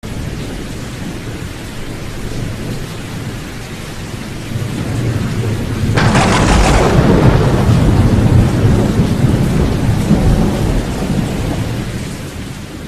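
Thunderstorm: steady rain hiss, then a sharp thunder crack about six seconds in that rolls into a long, deep rumble and fades away near the end.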